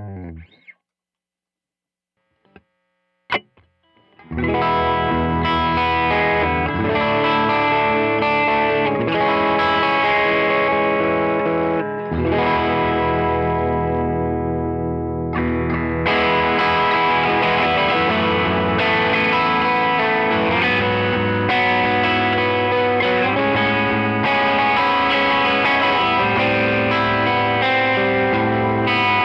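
Kramer Night Swan electric guitar through a Tone King Imperial MK II amp on its crunch setting, playing chords and riffs with light overdrive. A clean note fades out at the start, then comes a pause with a single click, and the crunch playing starts about four seconds in.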